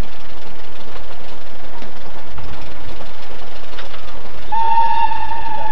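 A steam locomotive passing with loud, steady running noise. About four and a half seconds in, its whistle sounds: one long, steady note that carries on past the end.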